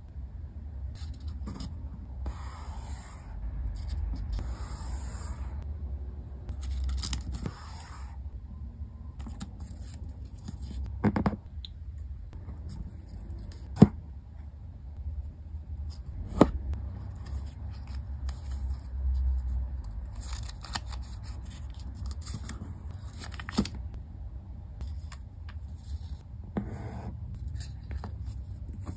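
Origami paper being folded and creased by hand: patches of rustling and scraping as the strip is turned and folded, with a few sharp clicks as creases are pressed down, the loudest about 14 and 16 seconds in. A steady low hum runs underneath.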